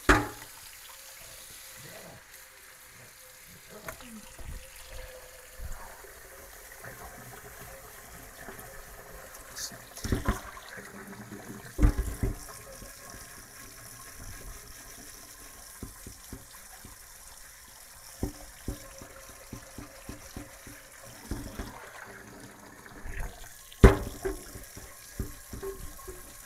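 Tap water running into a cast iron skillet in a stainless steel sink while baked-on food is scrubbed off with a sponge. Sharp clunks come every so often, the loudest near the start, twice about halfway through and again near the end.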